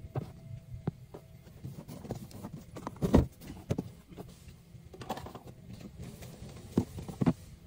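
Irregular clicks and knocks of car interior plastic trim being handled around the glovebox, with a louder thump about three seconds in and two sharp knocks near the end.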